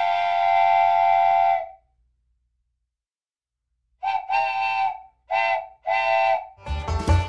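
Wooden train whistle blowing a chord-like tone: one long blast of about a second and a half, a pause of about two seconds, then three shorter blasts in quick succession.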